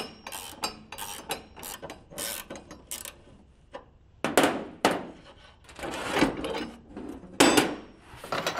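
Ratcheting wrench undoing bolts on a go-kart's rusty steel steering linkage: a run of quick clicks and metal knocks, then several longer rasping bursts of ratcheting and metal scraping.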